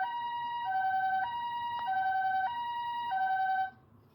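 Ambulance two-tone siren, the Japanese hi-lo "pee-poh" type, alternating evenly between a high and a low tone about every 0.6 s. It cuts off about three and a half seconds in.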